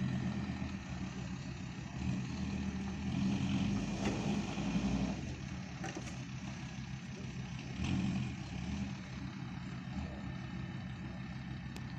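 A vehicle engine running and rising and falling in pitch in several swells, the strongest between about two and five seconds in and again around eight seconds, as it pulls under load.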